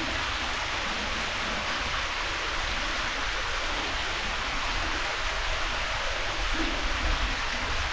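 Steady hiss of falling water, even and unbroken, with a low rumble underneath.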